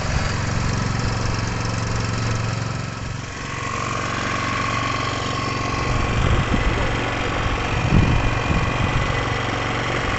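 A fishing boat's engine running steadily. About three seconds in its sound changes: the low hum weakens and a steady high whine comes in and holds, with a few low thumps later on.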